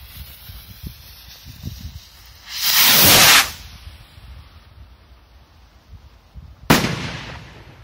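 Firework rocket climbing with a fading hiss, a loud rushing hiss lasting about a second near three seconds in, then a single sharp bang as it bursts about three-quarters of the way through, trailing off in echo.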